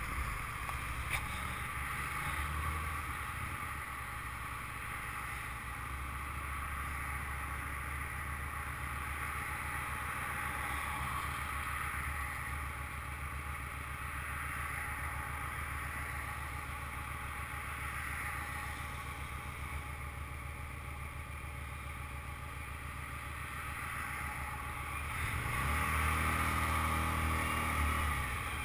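Motorcycle engine running at low speed, with a steady rumble and road noise. It grows louder for a couple of seconds near the end.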